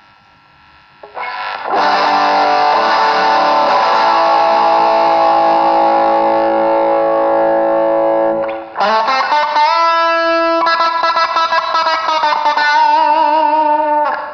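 Maison Les Paul Custom electric guitar played through overdrive. After a quiet first second a chord is struck and left to ring for about seven seconds, then a lead line of single notes follows, with bends and vibrato.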